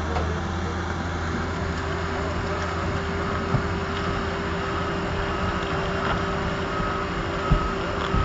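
Diesel engine of a heavy work machine running steadily, with a reversing alarm beeping at an even pace from about two and a half seconds in.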